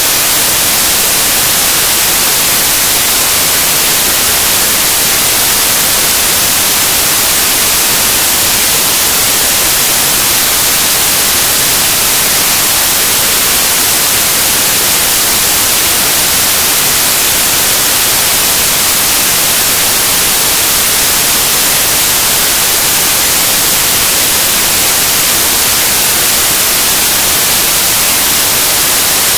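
Loud, steady static hiss with no changes, strongest in the high treble.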